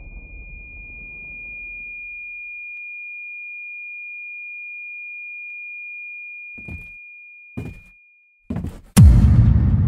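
Cartoon ear-ringing effect after an explosion: a steady high whine held for about eight seconds over a fading rumble, the sign of being deafened by the blast. Near the end come a few short knocks, then a loud thump with a heavy rumble.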